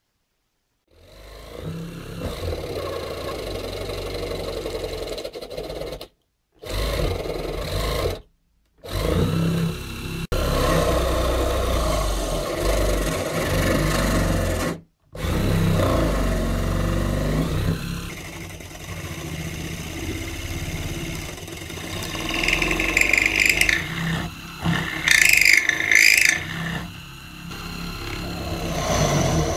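A home-built drill press's brushed DC motor spins a drill chuck while a step drill bit, and later a twist bit, cuts into fibreboard. The sound cuts out abruptly three times. A sharper, higher-pitched cutting noise comes in a few bursts near the end.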